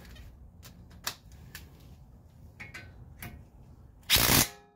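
Ratchet clicking in short, uneven strokes as a suspension pinch bolt is run tight, then a short loud rasping burst about four seconds in.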